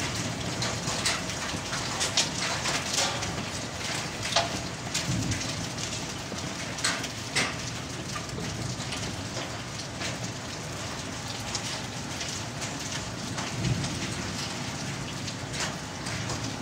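Hailstorm: a steady hiss of heavy rain with sharp clicks of hailstones striking hard wet surfaces, thickest in the first half and thinning later.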